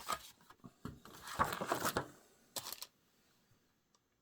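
Paper sheets and cards being handled, rustling in a few short bursts over the first three seconds.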